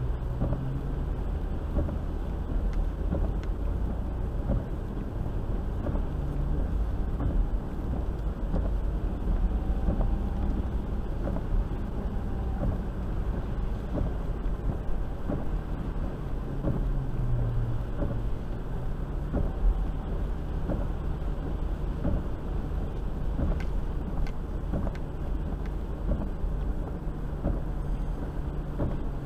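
Land Rover heard from the cabin while driving through shallow floodwater: a steady low rumble of engine and tyres, with water sloshing and splashing under the wheels.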